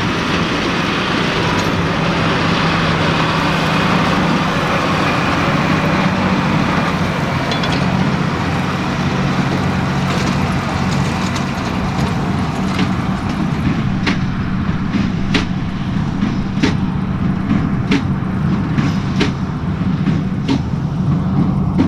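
John Deere 7310R tractor's diesel engine running steadily under load, pulling a New Holland BigBaler 1290 Plus baling straw. In the second half a sharp, regular clack sounds about every 1.3 seconds, in time with the big square baler's plunger strokes.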